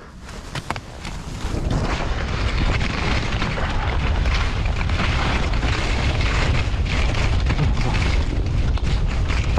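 Wind rushing and buffeting over the microphone of a skier on the move, with the hiss of skis running over snow. It swells about a second and a half in, then stays loud and steady.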